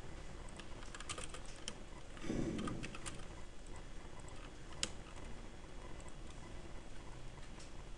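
Computer keyboard keys clicking in scattered bursts as commands are typed, with a single sharper click about five seconds in. A low rumble of about half a second comes in around two and a half seconds in.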